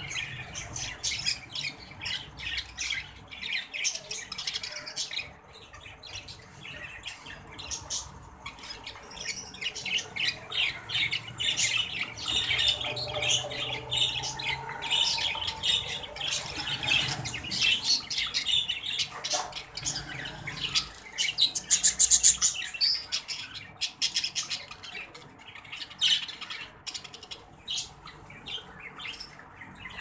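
Exhibition budgerigars chattering: a quick, continuous run of high chirps and warbles, with one loud, harsh squawk about three-quarters of the way through.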